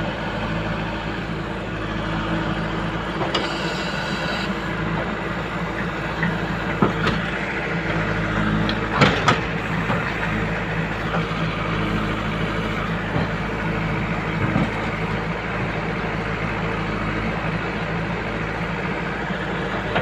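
JCB 3DX backhoe loader's diesel engine running steadily while the backhoe digs and dumps soil, with a few short knocks near the middle from the bucket and arm working.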